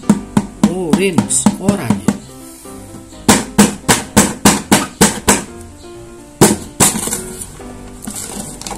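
A wooden stick jabbing repeatedly through a paper sheet: two runs of sharp pops, about four a second, then two louder single pops as the paper is torn open.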